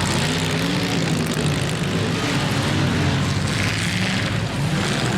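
Demolition derby cars' engines running and revving together, several pitches rising and falling over one another.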